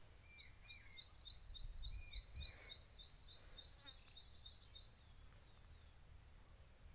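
Birds calling: a short high note repeated about four times a second, stopping about five seconds in, with a few lower, falling whistles in the first three seconds. A faint low rumble runs underneath.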